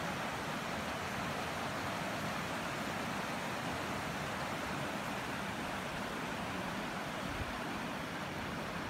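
River water rushing steadily over shallow rocky rapids, a constant even hiss.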